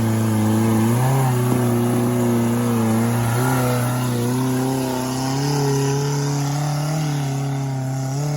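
Off-road 4x4's engine running hard under load on a steep climb, its revs rising and falling a little as it pulls.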